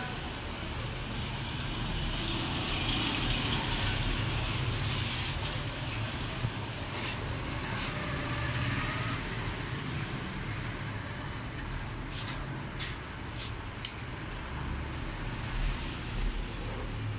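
Steady low rumble and hiss of background noise, with a few short, sharp snips of barber's scissors in the second half.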